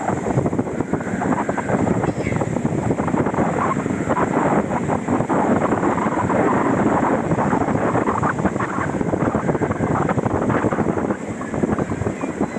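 Wind buffeting the microphone, a loud, steady, crackling rumble.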